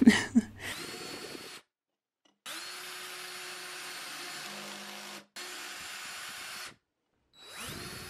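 DeWalt 20V MAX cordless drill running steadily as it bores pilot holes into wood before screwing, in several short runs that start with a rising whine and cut off abruptly.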